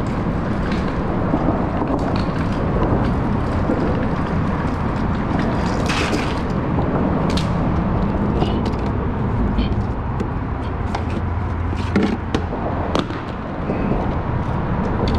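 A steady loud rumble of noise, with scattered knocks and clicks of fishing gear being handled and set down on concrete.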